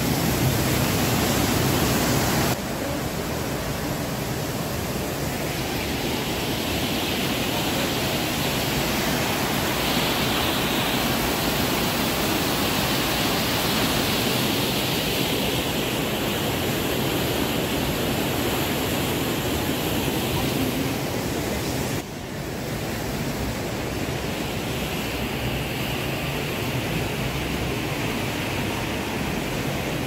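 Rushing white water of the Düden stream tumbling over rapids above the waterfall: a steady, dense rush of water noise, dipping suddenly in level a couple of seconds in and again about two-thirds of the way through.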